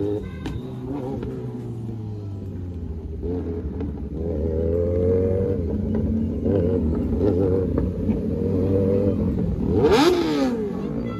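Several motorcycles running at low speed, their engine pitch rising and falling as the riders blip the throttles, with two louder, sharper revs near the end.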